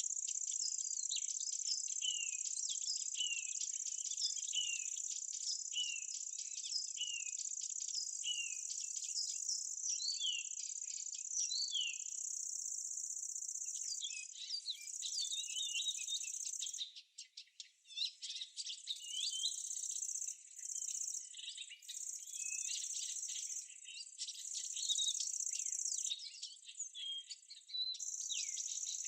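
Summer meadow ambience: insects chirring in a steady high-pitched buzz, with birds singing short, repeated down-slurred whistles among it. The insect buzz breaks off briefly several times in the second half while the birdsong grows busier.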